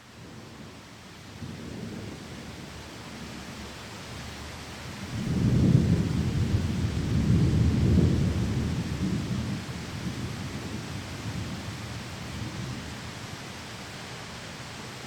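Rolling thunder over steady heavy rain: a deep rumble builds about five seconds in, is loudest for a few seconds, then fades back under the rain.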